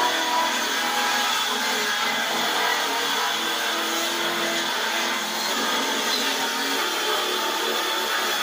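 MT Masaki MT-6800 cordless circular saw running steadily under load as its blade cuts through a wooden sheet.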